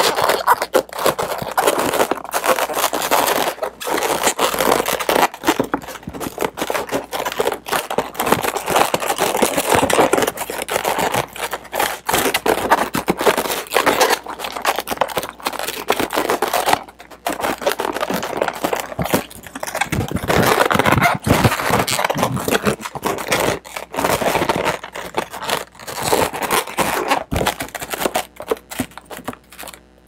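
Inflated latex twisting balloons (260s and a 160) rubbing and scraping against each other in the hands as a balloon's tail is pushed in between the bubbles and they are twisted, a continuous irregular scraping with many short sharp strokes. It dies away just before the end.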